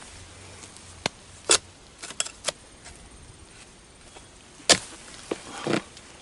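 Steel harvesting blade jabbing and cutting at the stalk of an oil palm fruit bunch: a series of sharp, irregular knocks, the loudest about three-quarters of the way through. The bunch is wedged between the fronds, so it takes repeated strikes to free it.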